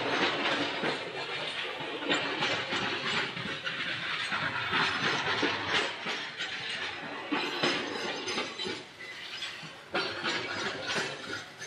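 Freight train of open-top steel gondola wagons rolling past, wheels clacking over rail joints in an irregular series of knocks over a continuous rumble and rattle.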